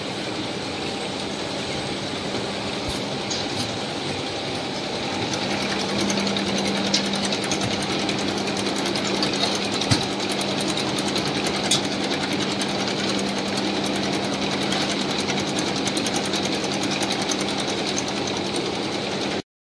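Textile finishing machinery running, a stenter line carrying fabric: a dense steady mechanical noise with a constant hum and a few sharp clicks. It cuts off abruptly near the end.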